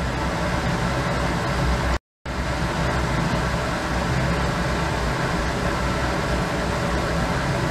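Steady hum and hiss of laboratory ventilation, with a brief cut to silence about two seconds in.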